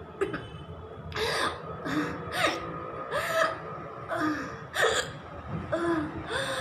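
A woman gasping over and over, about ten short breathy gasps each with a brief voiced catch, coming faster than one a second.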